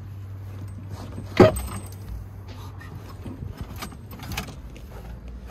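A single loud clunk about a second and a half in, then several lighter metallic clinks, over a steady low hum: tools and metal parts knocking as the rear axle assembly is let down on a jack.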